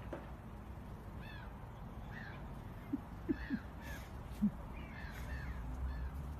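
Crows calling: a series of short arched caws, about one every second, over a steady low background. A few short, low sounds between about 3 and 4.5 seconds in are the loudest moments.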